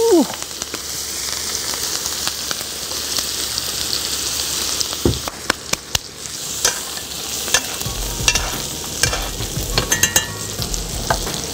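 Thick ribeye steak searing in foaming butter in a cast-iron skillet, a steady sizzle. From about five seconds in come sharp crackles and clicks as a spoon bastes the steak with the hot butter.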